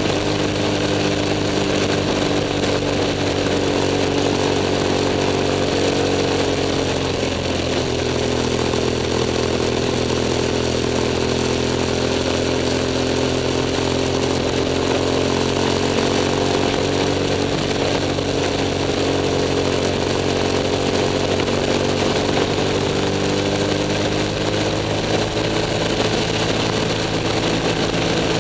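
BMW F 800 S motorcycle's parallel-twin engine running under way, heard close-up from the machine. The engine note drops about seven seconds in and then slowly rises again, with steady road and wind noise underneath.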